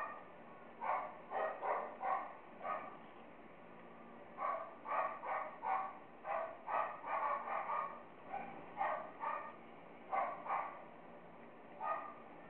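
A dog barking over and over in quick runs of several barks, with short pauses between the runs.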